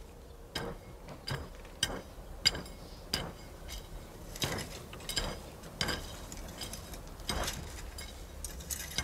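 A series of irregular sharp knocks, roughly one every half second to a second, some with a brief metallic ring.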